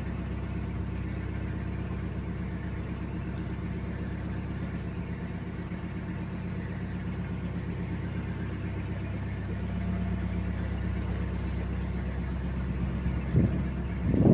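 Narrowboat's inboard diesel engine running steadily at low cruising revs as the boat moves along the canal. A louder, uneven noise comes in right at the end.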